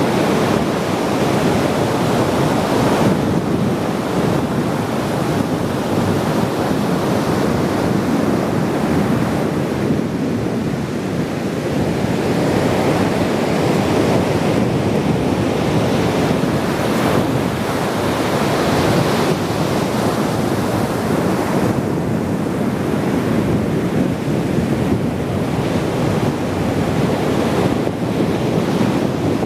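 Ocean surf washing ashore in a steady, continuous wash that swells and eases every several seconds, with wind on the microphone.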